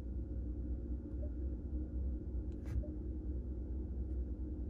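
Low steady hum inside the cab of a 2020 Ram 1500 Limited running at idle, with one faint click about two and a half seconds in.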